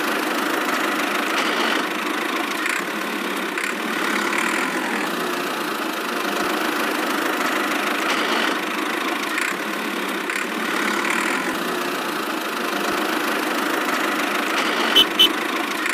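Steady engine-like running of the miniature toy tractor as it pulls its loaded trolley, with two short sharp clicks near the end.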